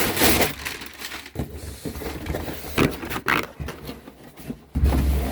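Shipping package being opened by hand: tearing and crinkling of the packaging in several short rips and rustles, with heavier handling noise near the end.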